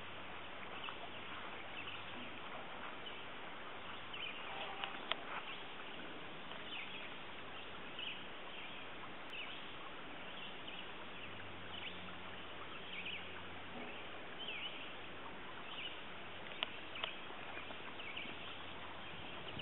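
Outdoor ambience: small birds chirping every second or so over a steady hiss, with a few sharp clicks about five seconds in and again near the end.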